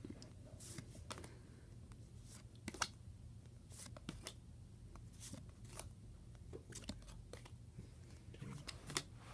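Baseball trading cards being flipped through by hand: faint, irregular clicks and slides of card against card, a couple a second.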